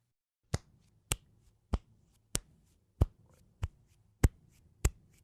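A steady series of sharp, identical clicks, about one and a half a second, each followed by a faint smaller tick.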